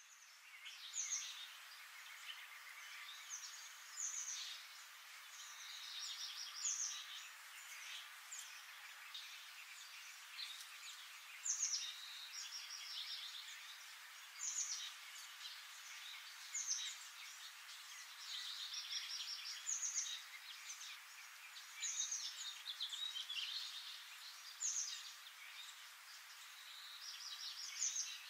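Forest birdsong over a steady background hiss: a bird repeats a short phrase every few seconds, a high note dropping into a rapid trill. The sound fades in at the start.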